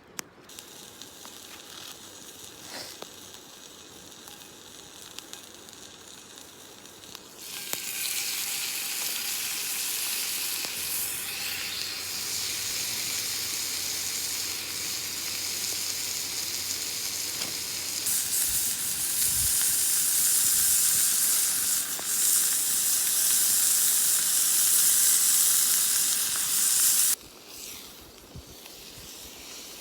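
Food sizzling in a hot cast-iron skillet: a faint hiss at first, then loud frying that starts about a quarter of the way in, grows louder past the middle, and cuts off suddenly near the end.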